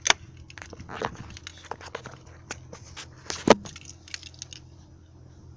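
Nissan VG30E V6 engine running with a steady low hum under irregular clicks and taps, two of them sharp and loud: at the very start and about three and a half seconds in. This is the knock the owner cannot place, suspecting the hydraulic lifters, a connecting rod or the pistons.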